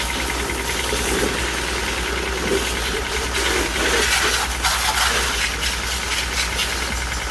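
Car engine running steadily at idle, with a few clicks about four to five seconds in.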